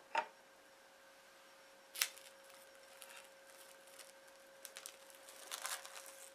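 A few sharp clicks, two right at the start and one about two seconds in, then light rustling and handling noises near the end, over a faint steady hum.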